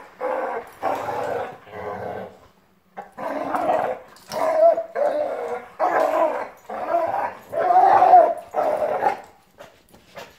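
Two dogs, a Vizsla and a black dog, play-fighting and growling in repeated loud snarling bursts about a second apart, with a short break about two and a half seconds in.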